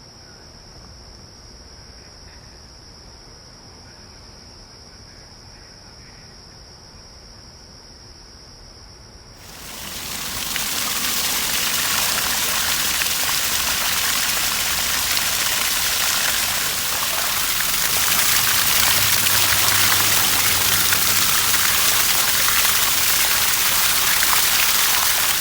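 A steady high insect trill, then about nine seconds in a loud rushing hiss of gushing water starts up and holds steady.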